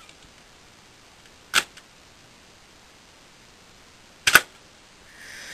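The big solenoid in a Technics 671 cassette deck's tape transport clacks twice, about three seconds apart, as it pulls in and lets go to lift the head assembly. The second clack is louder and doubled.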